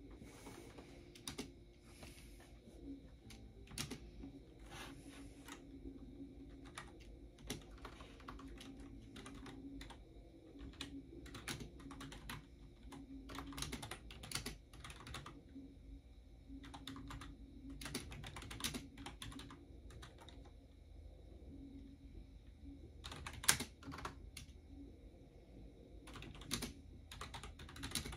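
Typing on a computer keyboard: irregular runs of quick keystrokes broken by short pauses, with a louder burst of keys late on.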